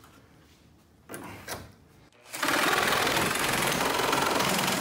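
Corded Milwaukee Sawzall reciprocating saw starts about halfway in and runs steadily, cutting through the wooden joint between a beam and the wall's top plates. A couple of light knocks come before it.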